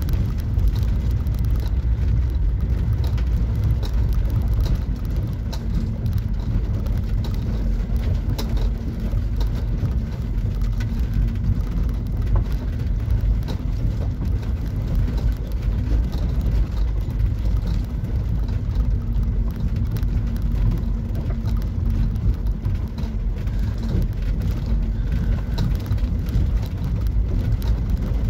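Camper van driving down a rough dirt track: a steady low rumble from the engine and tyres, with a constant scatter of small clicks and knocks.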